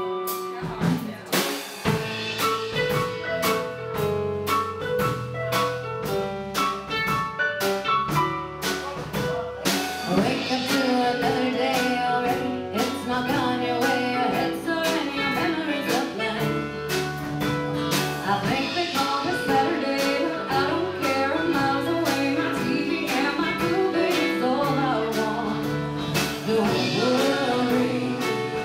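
Live band playing an original song with guitar, a small stringed instrument and drums, keeping a steady beat. A woman's lead vocal comes in about a third of the way through.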